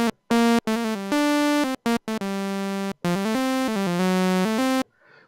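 Roland Gaia SH-01 synthesizer playing a quick run of notes with a raw, unfiltered sawtooth tone, some short and some held for a second or more. Each note starts and stops abruptly, the sign of an amplitude envelope left unedited, at instant attack and full sustain.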